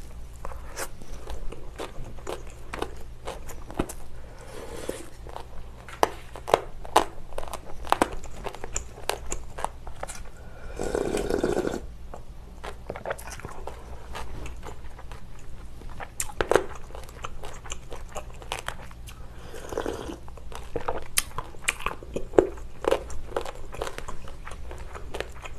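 Close-miked chewing of pork with crunchy cartilage, with many sharp crunching clicks. About ten and a half seconds in comes a second-long slurp of cold noodles and broth, and a shorter, fainter one around twenty seconds.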